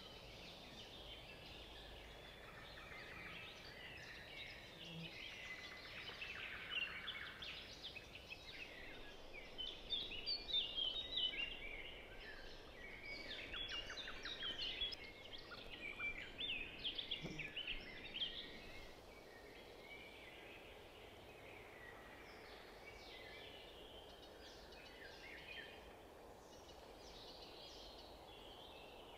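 Faint songbirds twittering, with quick chirps and trills over a low steady hiss; the calls are busiest midway and thin out afterwards.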